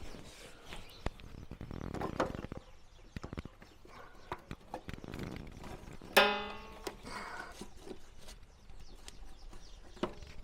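Scattered light clicks and knocks of hand work fitting a lawnmower's drive belt, with one loud, brief pitched sound about six seconds in.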